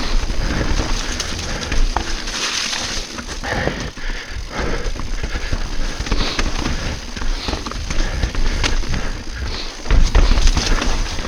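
Mountain bike riding down a rough downhill trail, its tyres running over roots and rocks with frequent sharp knocks and rattles, and the rider breathing hard.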